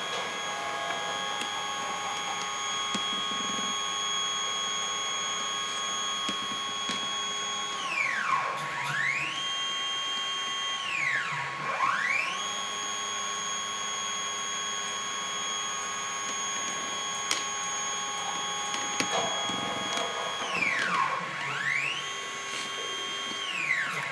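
Stepper motors of a DIY CNC quilting frame whining as they drive the sewing machine head around the perimeter of the pattern for a size check, with no stitching. There are four moves, two long and two short, like the sides of a rectangle. Each rises in pitch as it speeds up, holds a steady tone, then falls as it slows to a stop.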